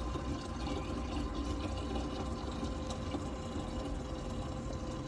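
Drinking-water vending machine filling a 5-litre plastic bottle: water running steadily into the bottle, with a steady hum beneath it.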